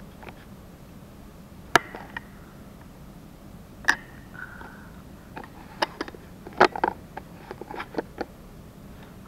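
Camera handling noise: scattered sharp clicks and knocks as the camera is picked up and repositioned over a tabletop, with the loudest knocks about two and six and a half seconds in.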